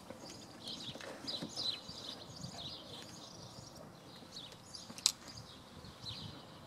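Small birds chirping and twittering with short repeated calls, and a single sharp click about five seconds in.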